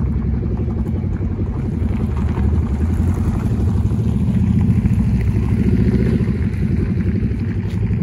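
A vehicle engine idling loudly, a dense, low, rapidly pulsing exhaust note that swells a little around the middle.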